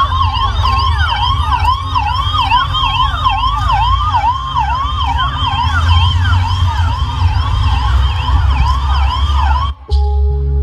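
Emergency-vehicle siren sound effect played over outdoor loudspeakers, a fast rising-and-falling wail repeating about three times a second over a deep rumble. It cuts off suddenly near the end and soft music begins.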